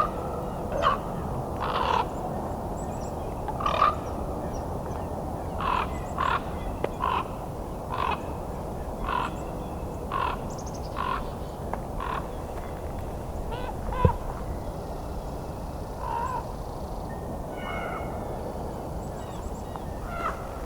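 Common raven calling over and over as it flies in, a long series of short croaks about one a second that thin out in the second half. A single sharp knock comes about fourteen seconds in.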